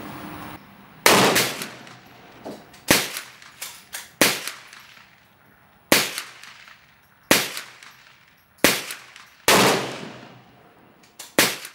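A rifle firing at steel plates, about nine shots one to two seconds apart, each trailing off in a short echo; the last two come close together near the end.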